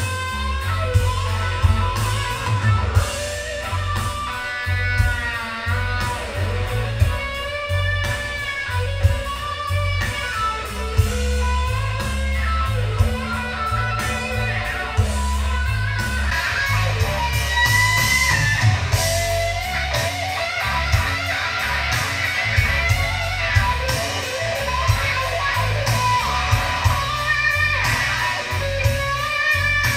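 Guitar music played back through hi-fi loudspeakers with an active subwoofer: electric-guitar lines with bent, wavering notes over a heavy bass line.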